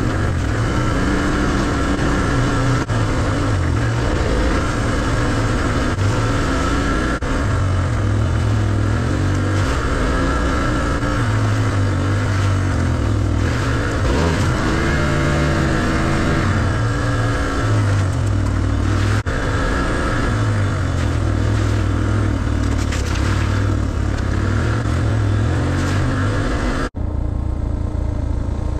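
Suzuki DR650's single-cylinder four-stroke engine running while the bike is ridden, its sound shifting in strength and breaking off abruptly a few times.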